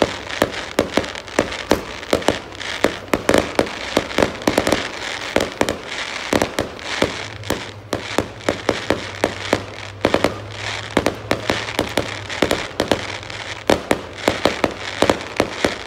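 Aerial fireworks bursting in quick succession: a dense run of sharp bangs and crackling pops, several a second, without a break.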